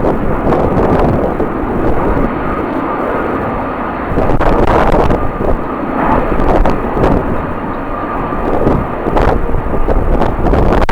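Jet airliner engine noise with a faint steady whine, mixed with strong gusting wind buffeting the microphone, the noise surging and easing every second or two.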